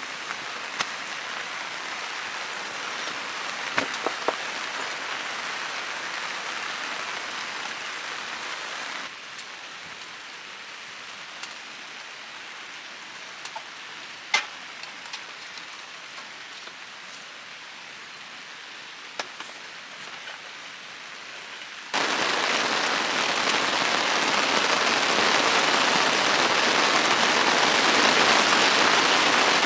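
Steady rain falling, with a few sharp drip taps now and then. The rain drops abruptly to a softer hiss about nine seconds in, then jumps abruptly to a louder, heavier hiss about 22 seconds in.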